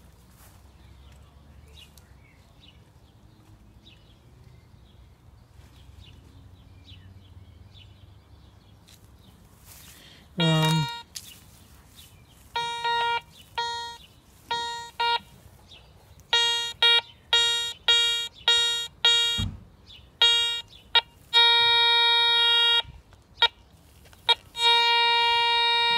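Garrett Ace 300i metal detector beeping as its coil is swept over a lawn: after a quiet first few seconds, a run of short beeps all at one pitch, then two long held tones near the end that mark a target signal.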